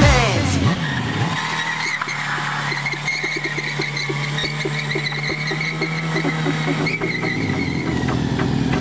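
Kawasaki Z1000 inline-four engine held at steady high revs while the rear tyre spins and squeals on asphalt in a smoking burnout. The revs drop near the end.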